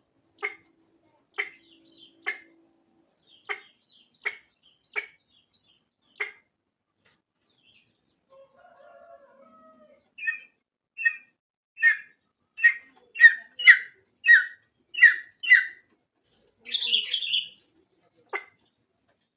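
Junglefowl hen clucking: short sharp clucks about one a second, then after a brief lull a faster, louder run of about nine, followed by one longer, harsher call and a final cluck near the end.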